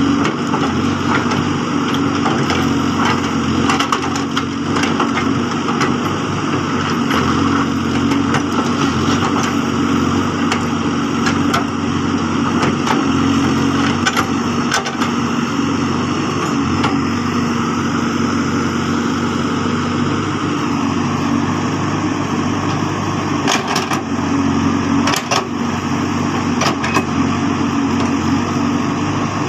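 Case backhoe loader's diesel engine running steadily while it works, with scattered sharp knocks and cracks throughout.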